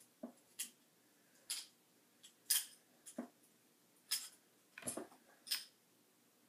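Fidget spinners being handled and fitted together: about nine sharp clicks and light knocks at irregular intervals.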